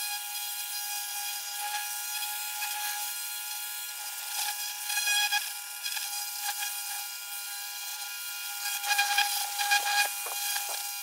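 Pressure washer spraying: a steady hiss of water with a steady whine over it, briefly louder about halfway through and again near the end.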